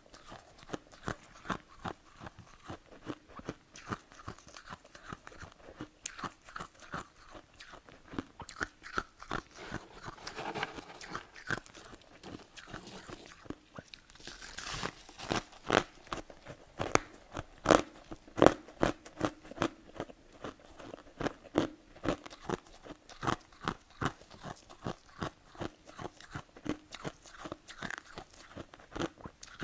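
Close-up crunching and chewing of powdery freezer frost (snow ice) in the mouth: quick crisp crunches, two or three a second, with a louder stretch a little past the middle.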